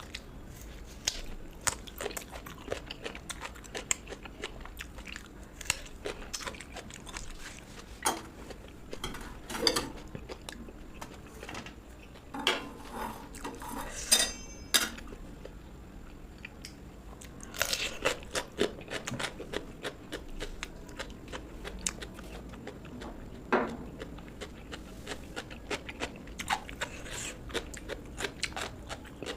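A person chewing and biting food close to the microphone, with irregular crunches and clicks.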